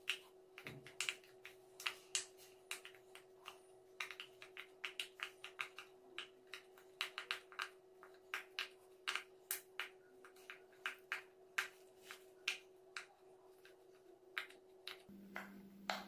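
Bubbles of a large silicone pop-it fidget toy being pressed in by fingers, one after another: a quick, uneven run of soft pops, several a second.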